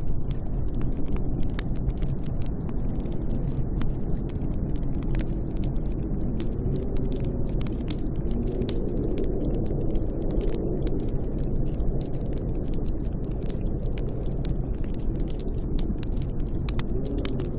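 Snowstorm wind blowing as a steady low rumbling noise, with many small sharp crackles scattered irregularly throughout.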